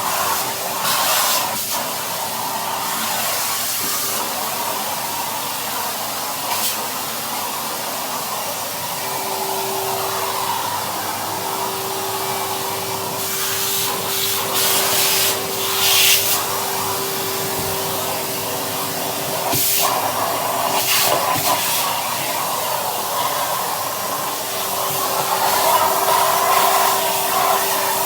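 Vacuum cleaner running with a crevice tool: a steady motor hum under a hiss of rushing air, the hiss swelling sharply several times as the nozzle is worked around.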